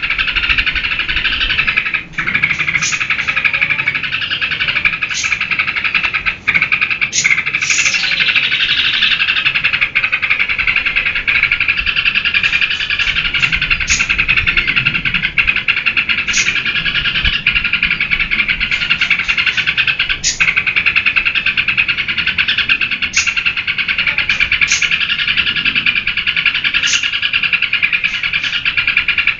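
Yellow-vented bulbul (trucukan) singing continuously: a dense unbroken chatter of notes, with short sharp high notes cutting in every second or two.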